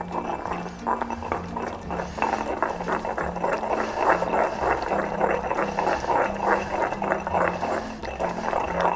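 Stone pestle grinding and stirring a wet spice paste in a granite mortar, in quick regular strokes about three a second, as olive oil is worked in to emulsify the adobo.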